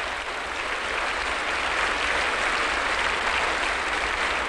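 A large hall audience applauding a standing ovation: dense, steady clapping that grows a little louder after about a second.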